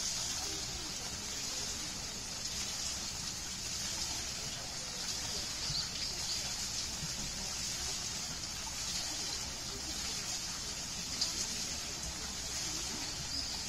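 Water splashing and trickling off a turning wooden water wheel, a steady rushing hiss with a low rumble underneath. A few faint high chirps come through on top.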